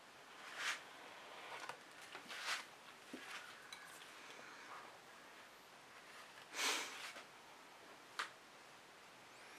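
Faint handling sounds: a few brief rustles of a paint-smeared plastic sheet being lifted off wet acrylic paint and set down, the longest about two-thirds of the way through, then a short sharp click as a tool is picked up.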